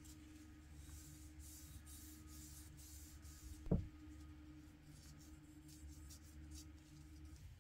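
A faint steady hum that stops shortly before the end, with a single dull knock about halfway through.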